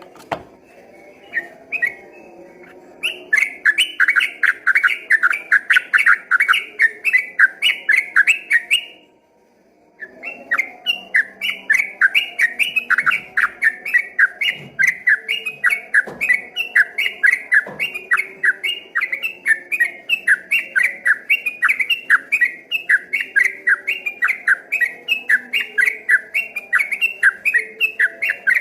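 Yellow-vented bulbul (trucukan) singing its rapid rolling 'ropel' song: a fast, even string of short chirping notes, several a second. The song breaks off for about a second around nine seconds in, then carries on.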